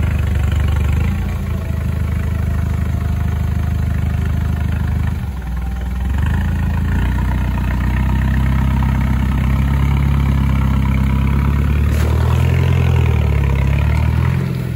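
Off-road 4x4's engine running: it drops away briefly about five seconds in, then holds steady, and its revs waver up and down near the end.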